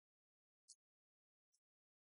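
Near silence, broken by two faint, brief high-pitched ticks, one a little under a second in and another near the end.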